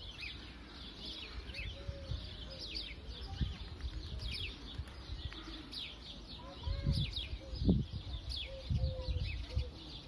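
Small birds chirping throughout, many quick, high, falling chirps overlapping, with a few low thumps about seven and eight seconds in.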